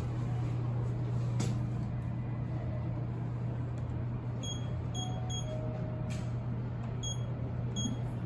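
Short high-pitched beeps from a Fujitec elevator car's floor-button panel as the 5 button is pressed again and again: three quick beeps about halfway through, then two more near the end. A steady low hum in the car runs underneath.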